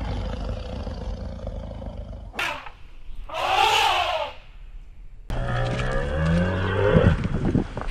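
A lioness growling low, then an African elephant trumpeting once for about a second, then cattle mooing in long, low calls over the last few seconds.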